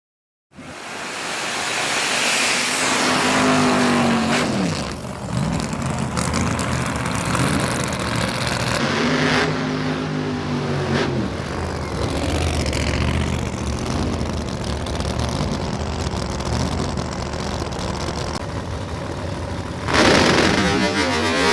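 Drag racing car engine running hard at high revs. It cuts in abruptly about half a second in, and its pitch sweeps downward a couple of times. Near the end a louder, rougher sound takes over.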